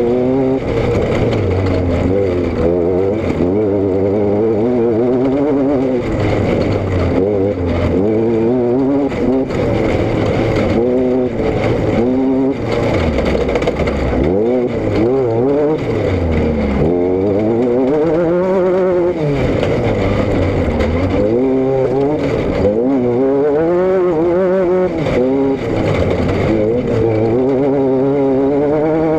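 Vehicle engine and exhaust running under way, the engine speed rising and falling again and again rather than holding steady.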